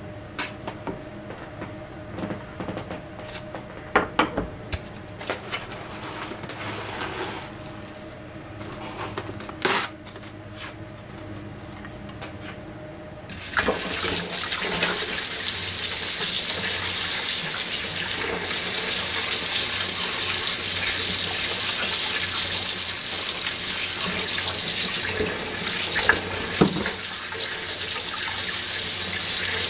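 A few sharp clicks and knocks of kitchen handling over a faint steady hum, then, about 13 seconds in, a tap starts running hard into a metal pot already full of water, a loud even splashing that carries on to the end.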